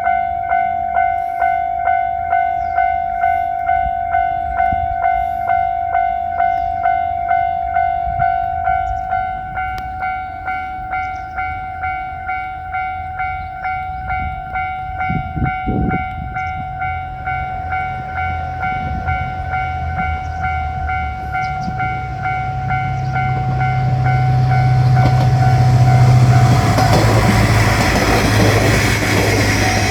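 Japanese level-crossing warning bell ringing in a steady, rapid rhythm of about two strikes a second. From about halfway a diesel train's engine drone and wheel noise build up and pass, loudest a few seconds before the end.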